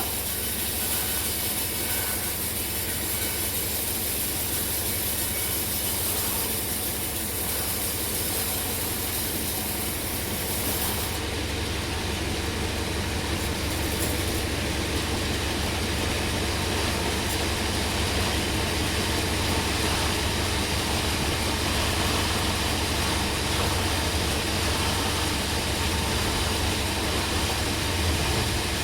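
Sawmill machinery running steadily: an engine-driven saw with a constant low hum and a high hiss, the highest part of the hiss dropping away about eleven seconds in.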